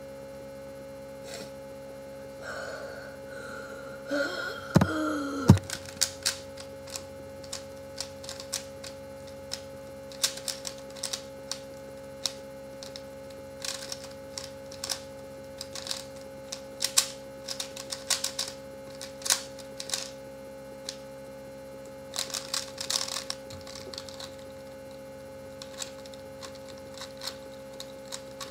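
3x3 Rubik's cubes being turned fast: irregular plastic clicking of the layers snapping into place, in quick flurries, over a steady electrical hum. About three to five seconds in there is a short strained vocal hum from the solver holding his breath.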